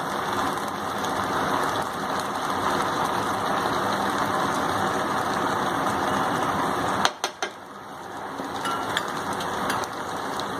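Steady hiss of chicken cooking in a pan with curd just added. About seven seconds in come a few sharp clicks, then the noise drops away briefly and builds back up.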